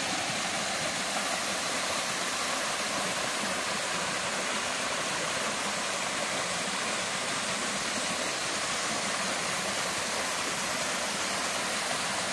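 Small waterfall spilling down a rock face into a stream pool: a steady rush of falling, splashing water.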